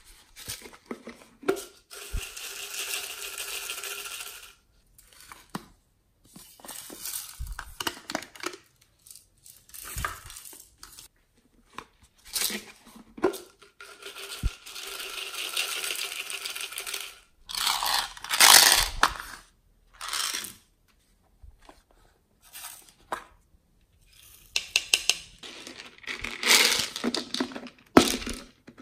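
Plastic beads and sequins rattling and pouring out of a plastic toy container onto slime. There are several bursts a few seconds long, with clicks and knocks from the container being handled and its cap worked between them.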